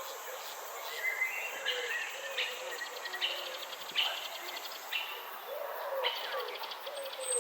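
Garden ambience of several birds chirping and calling: short chirps and trills repeating every second or so, over lower, curving calls.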